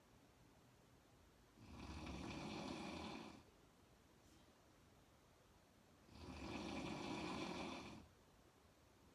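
A woman snoring with her mouth open: two long snores, each nearly two seconds, about four and a half seconds apart.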